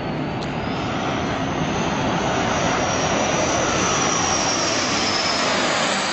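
Jet aircraft engines passing on landing approach: a dense rushing roar that swells slowly louder, with a high whine that slides slightly down in pitch.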